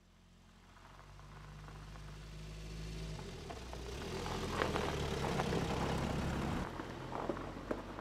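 A car driving toward and past on a snow-covered road: the engine note grows steadily louder as it approaches and changes pitch about three seconds in, with crackling from the tyres on the snow as it draws level. The engine sound drops away suddenly about two-thirds of the way through, leaving fainter crackling.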